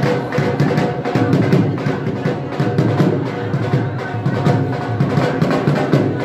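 Dhol, the double-headed barrel drum, beaten in a fast, driving rhythm: deep thuds a few times a second with quicker, sharper strokes between them, over a faint held note.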